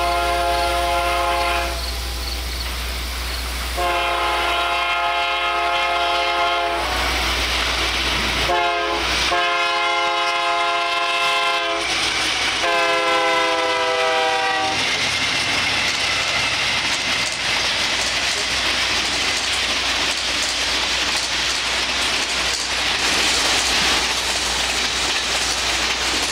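Diesel locomotive's multi-chime air horn sounding the long, long, short, long grade-crossing signal, its pitch dipping at the end of the last blast. It gives way to the steady rush of the train rolling past.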